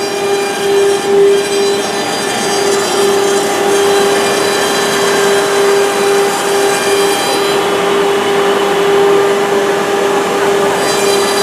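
Woodworking machine running steadily, giving a constant whine over a noisy hiss.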